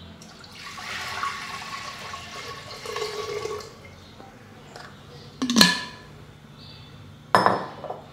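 Water pouring from a glass jug into an unglazed clay cooking pot for about three seconds, with a steady ring in the splashing. Then two sharp knocks about two seconds apart.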